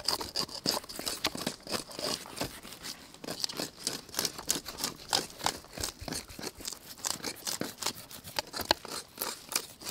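A small kitchen knife scraping and cutting along a whole scaly fish on a wooden chopping board: a quick, irregular run of crisp scratches and clicks as the blade catches on the scales.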